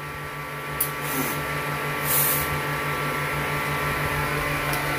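Steady hum of a small electric motor, with a slight pulsing in its low note. Short bursts of hiss come about a second and two seconds in.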